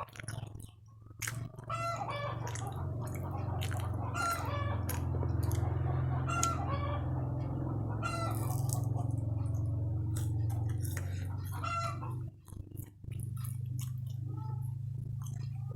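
Chickens clucking and calling in a run of short, arching calls over a steady low hum. The hum starts about a second and a half in and drops out briefly near the end.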